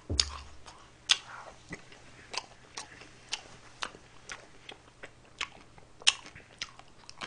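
Close-miked eating sounds: a mouth chewing and eating ice cream cake from a spoon, giving a string of short, sharp wet clicks and smacks, roughly two a second, at an uneven pace.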